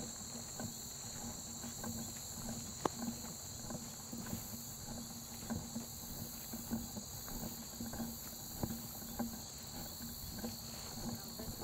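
Steady high-pitched insect chorus. Under it come irregular soft footsteps and light ticks, about one or two a second.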